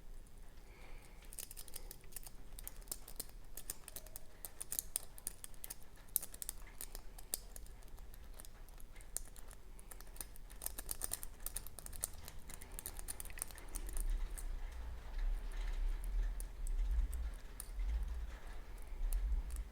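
A steel lock pick and tension tool clicking and scraping against the pins of a Kik euro cylinder being picked, a dense run of small light ticks. A Kik cylinder full of T-pins and serrated pins. Low dull handling bumps join in over the second half.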